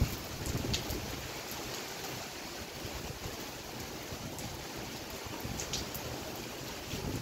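Steady rain falling: an even hiss with a few sharp drop ticks now and then.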